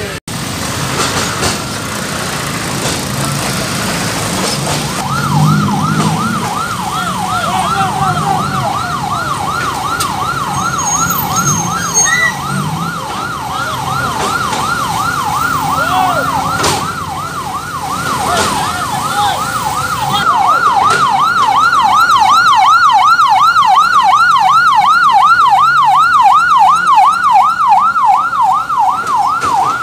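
Ambulance siren in fast yelp mode, a wailing tone sweeping up and down about three times a second. It starts a few seconds in and gets louder from about two-thirds of the way through as it comes close. Vehicle engines rumble low underneath in the first half.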